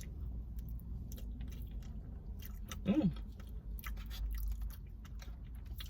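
Close-up chewing and biting of a crispy chicken rice bowl, with small wet mouth clicks and a short hummed "mm" about three seconds in.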